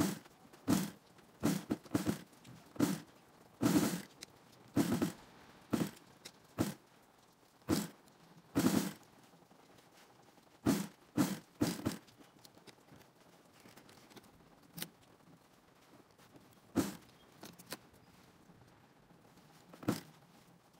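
Industrial sewing machine stitching in many short runs, each under half a second, stopping between runs while the fabric is turned. It is sewing the curved seams of a fabric glove. There is a longer pause partway through before the short runs resume.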